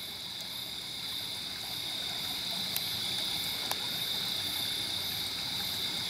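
Creek water running steadily over a rocky bed, with a steady high-pitched insect chorus over it.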